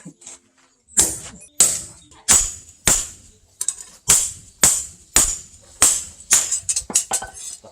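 Blacksmith's hammer striking steel on an anvil, about a dozen blows at a steady pace of nearly two a second, each with a high metallic ring; a few lighter, quicker blows near the end.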